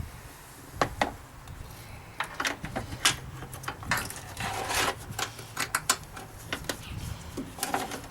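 Hand-working noises: scattered clicks, knocks and rubs of handling a car's hood release cable, its rubber grommet and an aerosol can, with a short hiss about five seconds in, a squirt of silicone spray onto the rubber grommet.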